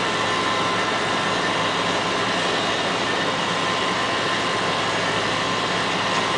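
An engine running steadily: a constant mechanical drone with no change in pitch or loudness.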